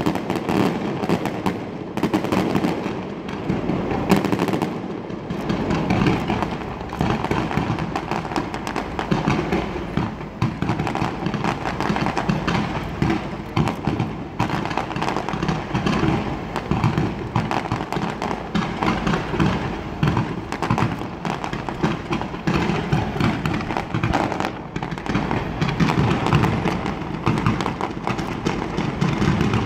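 Fireworks display: a dense, continuous barrage of bangs and crackling from pyrotechnics, without a pause.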